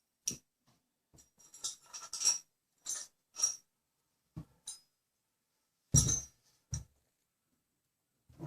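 Small metal hardware clinking and tapping as it is handled, in a scattered series of light clinks, with a louder knock about six seconds in.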